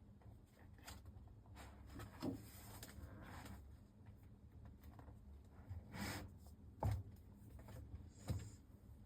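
A few faint, scattered knocks and taps over a low steady hum, the sharpest about two, six, seven and eight seconds in.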